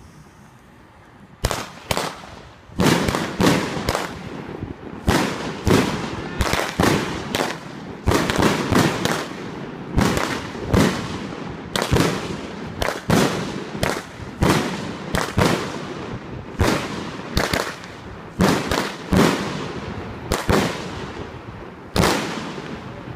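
Sound King 200 g firework cake firing shot after shot, a rapid series of sharp bangs about one to two a second, starting about a second and a half in, as its tubes launch shots that burst overhead.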